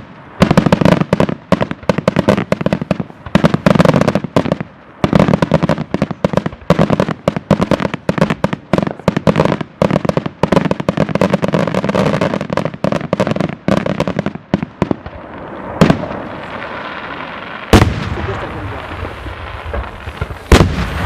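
Daylight fireworks: a dense, rapid string of firecracker bangs for about fourteen seconds, then a quieter steady rumble broken by three single loud bangs.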